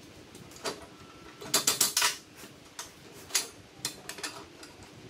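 Metal clicks and clanks as a steel tubular extension arm is handled and fitted into a folding saw stand: a quick run of sharp clicks about one and a half seconds in, then scattered single knocks.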